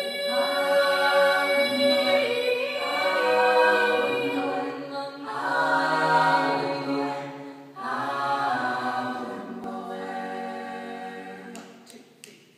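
Choir singing a cappella, holding long chords that change every two to three seconds, then fading out near the end.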